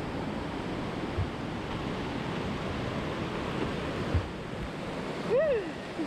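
Steady rushing of white water tumbling down a river cascade, with two faint low thumps and a brief voice near the end.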